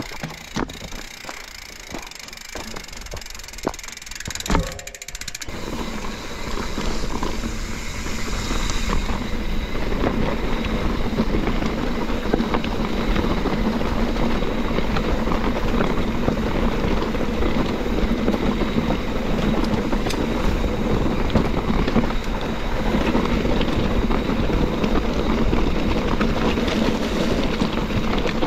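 Mountain bike ridden over rocky dirt single track, picked up by a bike-mounted camera. Irregular clacks and knocks come first; from about six seconds in they give way to a steady rush of wind and tyre noise with constant rattling as the bike picks up speed.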